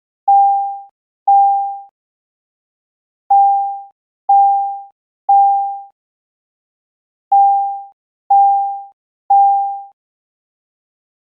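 Synthesized imitation of an EST Genesis fire-alarm chime sounding in the temporal-three pattern: three single-pitched, quickly fading chime tones about a second apart, then a pause, with the group repeating every four seconds.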